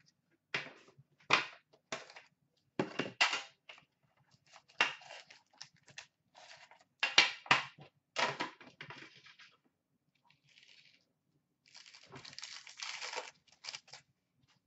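Handling a metal Upper Deck hockey card tin: a run of sharp clatters and knocks as the tin is opened and the card packs are taken out and set down. About twelve seconds in comes a longer crinkling rip as a card pack wrapper is torn open.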